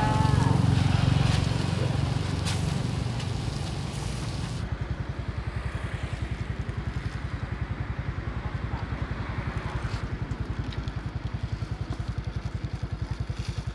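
A small engine running, rougher and louder for the first few seconds, then settling into a steady idle with low pulses at about eight a second.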